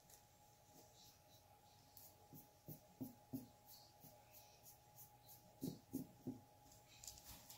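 Faint scratchy strokes of a small paintbrush dabbing and brushing paint onto a rock, with a few soft knocks past the middle.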